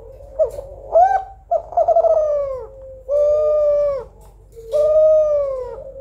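Female spotted dove (Kelantan-type derkuku) cooing: two short rising notes, then a quavering coo and two long, even coos that dip at their ends.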